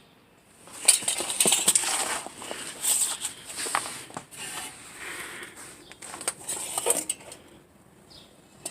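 Irregular clattering and scraping with sharp metallic clicks and knocks, the sound of moving about and handling things under a car. It is busiest in the first few seconds and dies down near the end.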